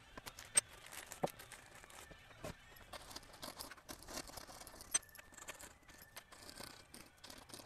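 Faint handling of small screws and hardware on a workbench: a few sharp metallic clicks with light rubbing and scraping between them, as old heat-sink compound is wiped off a screw.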